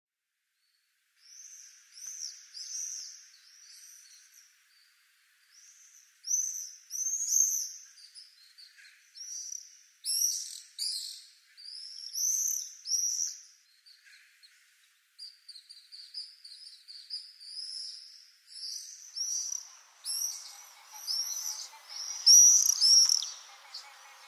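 Common swifts screaming: shrill, high-pitched calls in repeated bursts, starting about a second in and loudest near the end. Faint background noise comes in underneath near the end.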